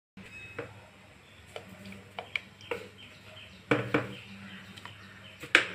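A spoon stirring thin gravy in a pressure cooker, knocking and clinking against the pot about eight times, the loudest clink near the end, over a low steady hum.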